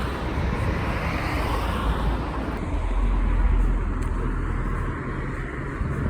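Steady rumble and hiss of road traffic, swelling a little around the middle.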